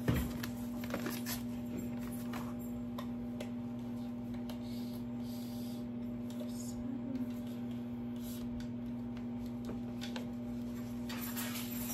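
Quiet handling of paper and flat kit boards, with scattered taps and rustles, over a steady low hum. Near the end, a tape measure is drawn out along a board, adding a short run of clicks and scrapes.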